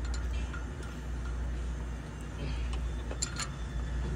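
Light metallic clicks of hand tools on a diesel engine's valve rocker adjuster during valve-clearance setting, a few scattered ticks with two close together about three seconds in. A steady low hum runs underneath.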